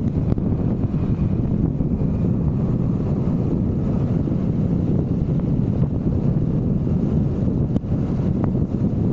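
Wind buffeting the microphone on a moving Vespa GTV 300 scooter, a steady low rushing noise with road and engine sound blended underneath.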